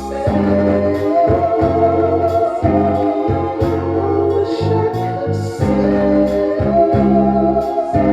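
Music: a song with sustained organ chords over a pulsing bass line and a wavering melody line.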